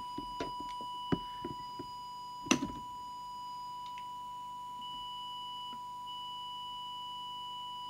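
A small handheld audio signal generator sounding a steady, pure test tone, held up to a CB radio's microphone to drive the transmitter while its FM deviation is measured and set. A few light clicks and knocks from handling sound over it, the loudest about two and a half seconds in.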